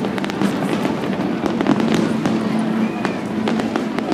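Fireworks display finale: a rapid, continuous run of bangs and crackling bursts, several each second, over a steady rumble.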